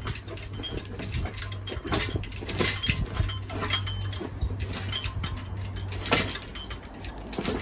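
Metal clinks and knocks of tools and the engine crane's chain as a hoisted engine is worked over a chassis, over a steady low hum that fades about halfway through.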